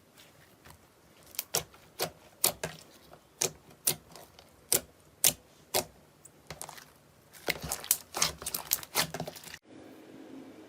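Slime being pressed and worked by hand, giving sharp crisp clicks and pops, at first one or two a second, then a quick run of them a little before the end. Near the end the clicking cuts off abruptly, leaving a quieter steady background.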